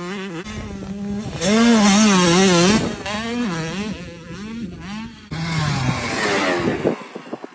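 Kawasaki KX85 two-stroke dirt bike engine revving hard, its pitch rising and falling repeatedly with the throttle; the loudest burst comes about a second and a half in. Near the end the pitch drops and the engine sound falls away.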